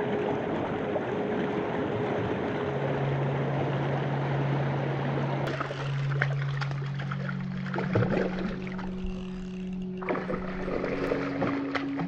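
Rushing water of a shallow stream pouring over stones, under background music of long held notes. About five and a half seconds in the rushing stops abruptly, leaving the music and a few small splashes at the water's surface.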